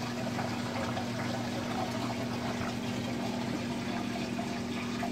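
Saltwater aquarium's pump humming steadily, with the even hiss of circulating water.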